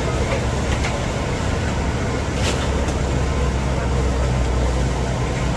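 Steady low rumble of street noise, with a few faint clicks in the first half.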